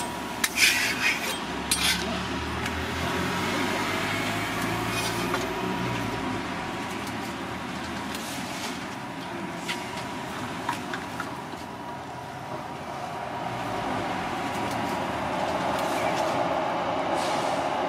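Busy street ambience at a crepe stall, with voices in the background and a few sharp clicks of utensils in the first couple of seconds. A rumble builds near the end.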